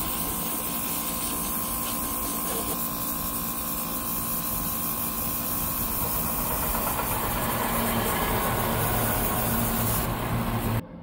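Airbrush spraying grey model paint in a grainy 'sand-spray' pass: a steady hiss of air and paint, over a steady low hum. It grows slightly louder about halfway through and cuts off sharply near the end.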